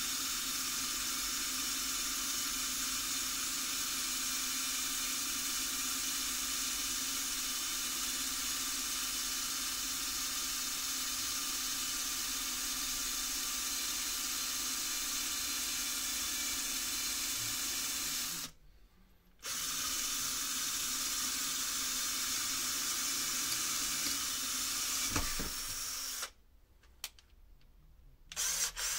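Small electric drill running steadily with a 2 mm bit, drilling a small hole. It cuts out for about a second about two-thirds of the way through, runs again for several seconds, then stops, and a few sharp clicks follow near the end.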